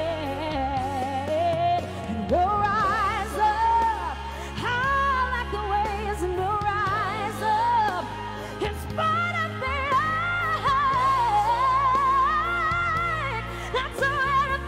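Live female pop vocal with sustained, vibrato-laden notes and runs over a band backing with a steady bass line.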